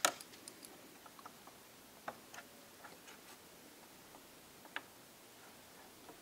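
Scattered small clicks and ticks of a screwdriver and fingertips working at a laptop's small circuit board and ribbon-cable connectors, plastic and metal parts tapping and snapping. The sharpest click comes right at the start, with others about two seconds and nearly five seconds in.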